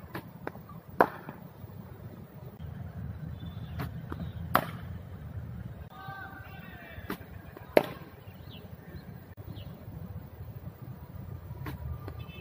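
Cricket ball cracking off a bat in net practice: three loud, sharp cracks about three seconds apart, each just after a softer knock, over a steady low rumble.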